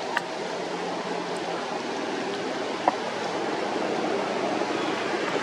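Heavy rain falling steadily, an even hiss, with two brief sharp ticks, one just after the start and one about three seconds in.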